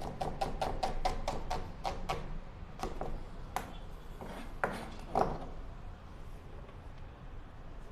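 Kitchen knife chopping on a cutting board: a quick even run of strokes, about five a second, for two seconds, then four separate chops, then it stops.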